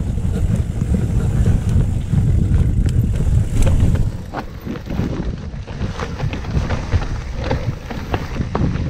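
Wind rumbling on the camera microphone as a mountain bike rides down a trail, with the bike's clicks and rattles over rough ground. The wind eases about four seconds in and the knocks stand out more.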